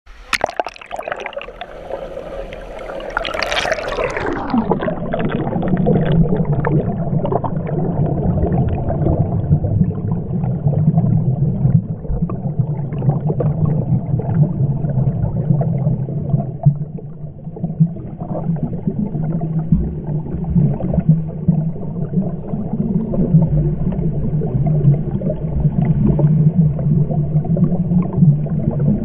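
Swimming-pool sound heard through a camera that is lowered into the water: open splashing for the first few seconds, then the sound goes muffled about four seconds in. After that, steady muffled underwater sound with a low hum and the irregular bubbling and splashing of a swimmer doing front crawl close by.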